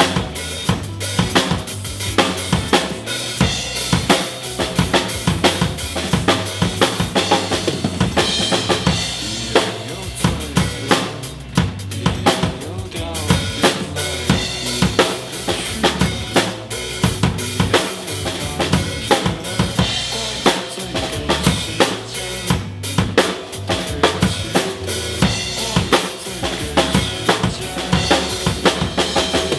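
Acoustic drum kit played in a driving rock groove: bass drum, snare with rimshots, and cymbals, struck densely and steadily. Underneath runs the song's recorded band backing, with sustained bass and guitar tones and no vocals.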